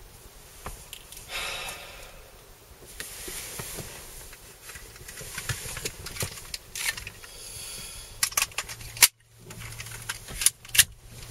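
Metallic clicks and rattles of a handgun being handled and its slide worked, with sharp clacks about nine seconds in and again near the end.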